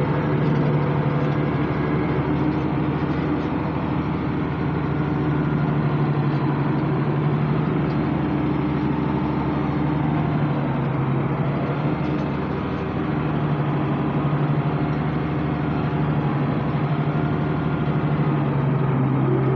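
International 886 tractor's diesel engine running at a steady speed, pulling a hay baler.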